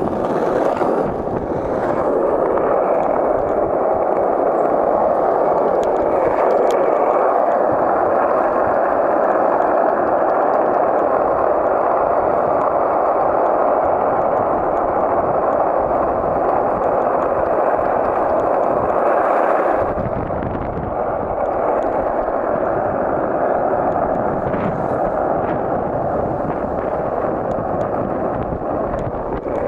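Skateboard wheels rolling fast on an asphalt street, a steady, loud rolling noise. About twenty seconds in, the sound shifts to a deeper rumble and gets slightly quieter.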